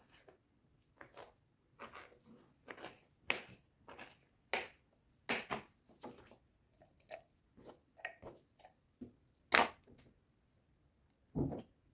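Knife cutting canned pineapple rings on a plastic cutting board: irregular soft taps and clicks of the blade on the board as the fruit is handled, with one louder knock late on.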